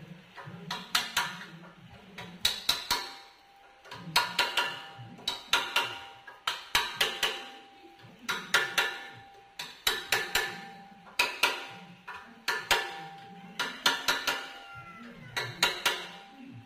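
Hand hammer striking a steel part on the frame of a mechanical tree shaker being assembled, in quick groups of two to four blows about every second and a half, each blow with a short metallic ring.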